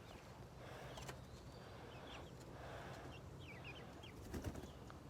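Faint, short, high bird chirps now and then over a quiet outdoor background, with a couple of soft knocks near the end.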